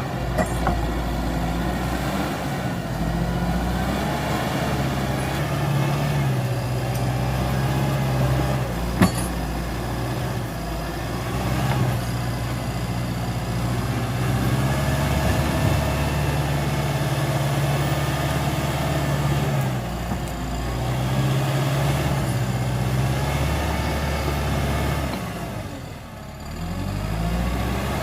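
CAT D5K XL bulldozer's diesel engine running steadily, its pitch rising and falling several times as it works. A single sharp knock comes about a third of the way in, and the engine briefly eases off near the end.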